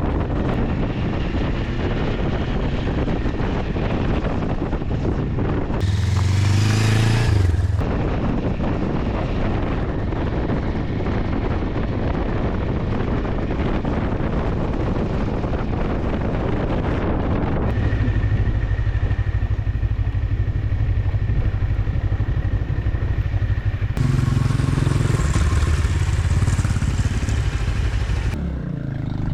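GR400 motorcycle engine running while under way, its revs rising briefly about six seconds in and again near the end.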